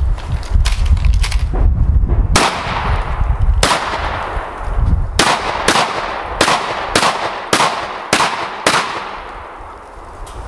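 Semi-automatic 12-gauge shotgun fired in a practical-shooting stage: two loud shots more than a second apart, then a faster string of about six or seven shots roughly half a second apart, each crack followed by a short ringing tail. A few fainter cracks come in the first second or so, and there is a low rumble over the first few seconds.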